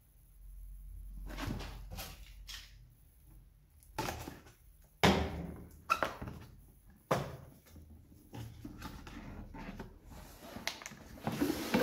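Cardboard box being handled and set down on a desk: rubbing and scraping, with a few sharp knocks about a second apart, the loudest about five seconds in.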